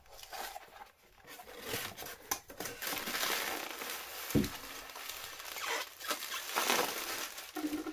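Thin plastic bag and packing paper crinkling and rustling as they are handled and pulled out of a cardboard box, with a couple of short knocks.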